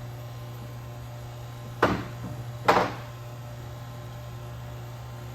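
Two short hisses of air, about a second apart, as the vacuum in the plugging apparatus is released and air rushes back in. A steady low hum runs underneath.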